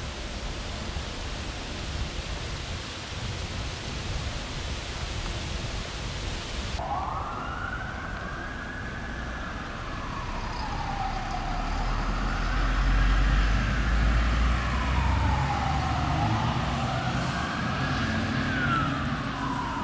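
A steady hiss cuts off abruptly about seven seconds in. An emergency vehicle siren takes over, wailing in a slow rise and fall every few seconds over a low vehicle rumble that grows loudest midway and then eases.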